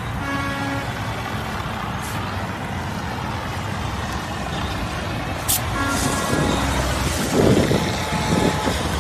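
Handheld fire extinguisher discharging its powder in a continuous hiss, with highway traffic running behind; the noise grows louder near the end.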